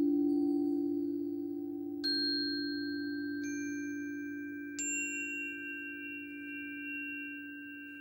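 A crystal singing bowl's low tone fading out, while a small three-bar metal chime on a wooden base is struck three times, about two, three and a half and five seconds in. Each strike rings on as a clear, high note over the hum.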